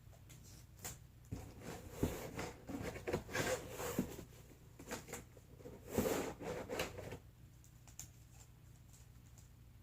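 Cardboard and scotch tape being handled: irregular crinkling, rustling and light knocks for about six seconds, stopping about seven seconds in.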